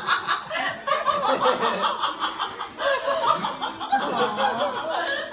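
People laughing and chuckling, several voices overlapping, until the sound cuts off abruptly near the end.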